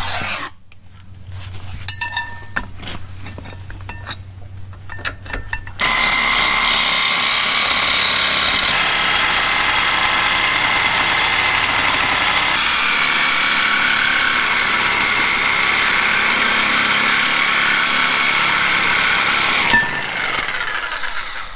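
Corded reciprocating saw with a Diablo blade cutting through a control arm bolt rusted solid into its bushing. After some light clicks as it is set in place, the saw runs steadily for about fourteen seconds with a high ringing whine of blade on steel, then stops.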